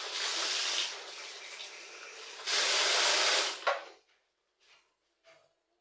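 Water running from a kitchen tap, louder for about a second near the middle, then shut off about four seconds in.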